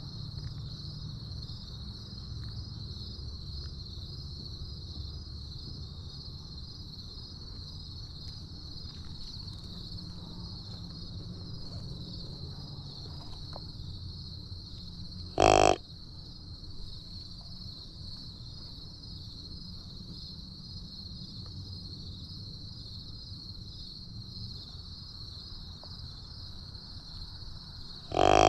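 A steady, high-pitched insect chorus, broken twice, about thirteen seconds apart, by a loud short call lasting about half a second.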